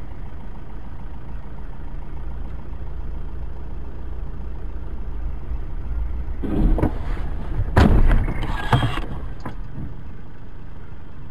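Steady low rumble of a car's engine and tyres on a snowy road, heard inside the cabin. About six and a half seconds in comes a crash: a burst of scraping and thuds with a hard bang near eight seconds and another just before nine, as the car leaves the road into the snow.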